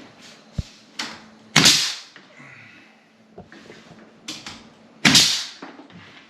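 Knocks and bangs from a door and its frame being handled during installation: a few sharp clicks and thuds, with two louder bangs about one and a half and five seconds in.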